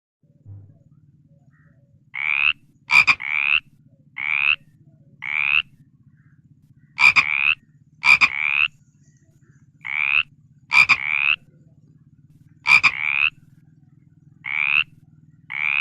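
An animal's short calls repeated over and over, singly and in pairs, each rising slightly in pitch, with sharp clicks among them.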